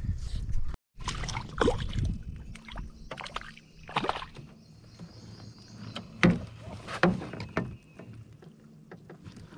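Scattered knocks and bumps in a small fishing boat, with a low rumble, while a fish is brought in and lifted aboard; the two sharpest knocks come a little past the middle.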